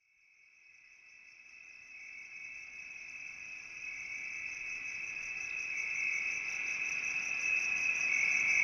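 A high, steady insect-like chirring with a fast pulsing above it, fading in from silence about a second in and growing steadily louder.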